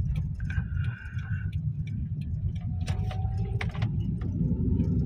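Car cabin noise while driving: a steady low rumble of engine and road, with scattered light ticks and clicks.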